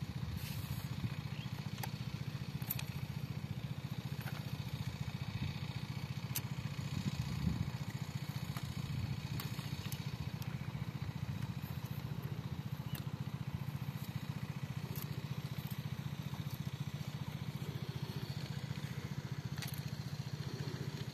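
A small engine running steadily at an even pace, with a few faint clicks.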